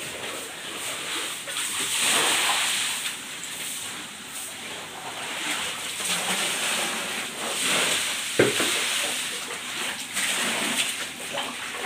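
Hot oil sizzling as tofu fries in a large wok: a steady hiss that swells twice, with a single knock about two-thirds of the way through.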